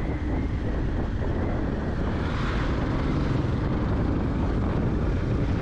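Yamaha FZ-X motorcycle's 149 cc single-cylinder engine running steadily at a cruise, with wind rushing over the microphone.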